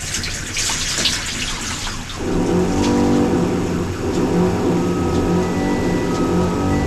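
Liquid pouring and trickling as lemon-peel extract is poured through a filter. About two seconds in, a steady hum with several tones starts and carries on.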